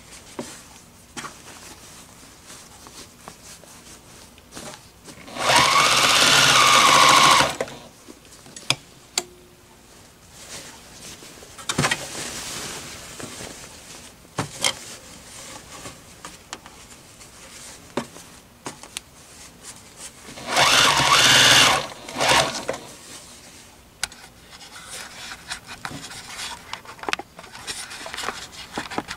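Electric home sewing machine stitching a ruffle onto fabric, running in two loud bursts of about two seconds each, one about a fifth of the way in and one about two-thirds in. Between them come quieter stretches of sewing and scattered clicks as the fabric is handled.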